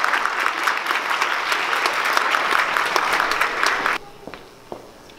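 Audience applauding, a dense patter of many hands clapping that cuts off abruptly about four seconds in. What follows is much quieter, with one soft thump of a bare-footed landing on a wooden stage floor.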